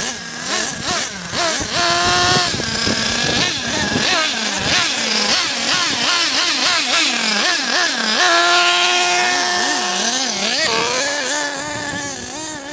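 Nitro RC buggy's small glow-fuel two-stroke engine revving as it drives, its pitch rising and falling in quick throttle blips and held high and steady for a moment about two seconds in and again for a couple of seconds past the middle.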